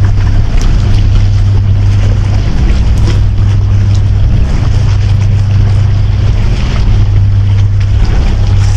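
Wind rumbling on the microphone by the sea, a loud steady low hum with an even rushing haze over it.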